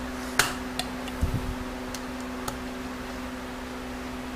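A few faint metallic clicks as snap ring pliers work at a snap ring in an automatic transmission clutch drum, over a steady hum.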